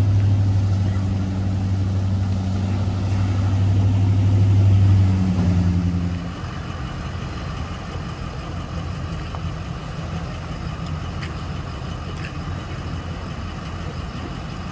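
Ford pickup truck engine running close by with a steady deep hum. About six seconds in it drops to a quieter, even idle.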